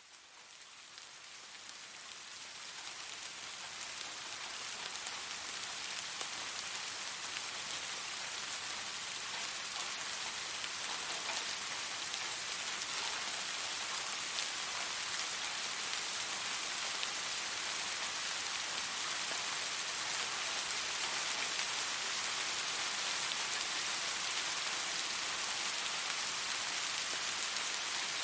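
Calm, steady rain falling: a dense, even hiss of drops that fades in over the first few seconds and then holds steady.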